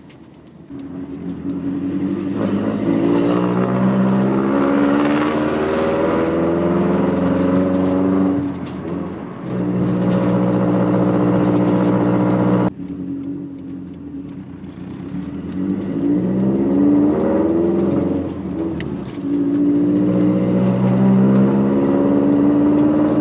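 2013 Subaru STI's freshly rebuilt turbocharged flat-four engine pulling up through the gears on its first drive, heard from inside the cabin; its note climbs, drops at each gear change, and climbs again, twice over, with a sudden break in the sound about halfway through.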